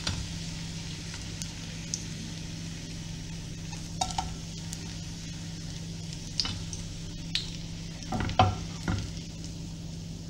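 Potato pancakes frying in hot oil and butter in a frying pan, sizzling steadily, with a few knocks and scrapes of silicone spatulas against the pan as the pancakes are lifted out, the loudest a little after eight seconds in.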